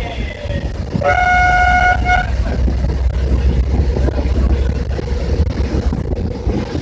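A vehicle horn sounds one steady note for about a second, with a brief break just before it stops, over the steady low rumble of a bus driving along the road.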